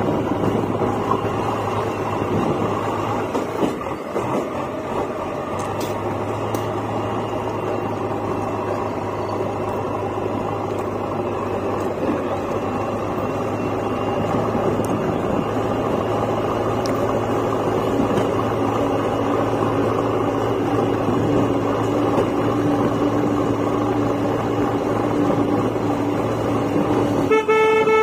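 Steady engine drone of vehicles on the move: a JCB 3DX backhoe loader driving along the road just ahead, mixed with the engine and road noise of the vehicle carrying the microphone. A horn sounds briefly near the end.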